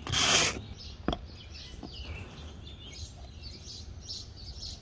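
A short stroke of 100-grit sandpaper rubbed by hand over the painted surface of a hollow-core door near the start, sanding down dried expanding foam, then a single click. Faint bird chirps follow.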